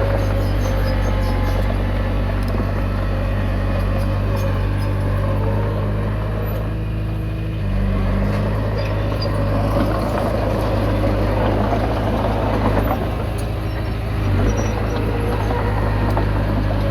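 Komatsu D20P bulldozer's diesel engine running steadily under load, with the grinding clatter of its tracks and blade working soil. The engine note changes and gets slightly louder about eight seconds in, and a rougher scraping stretch follows.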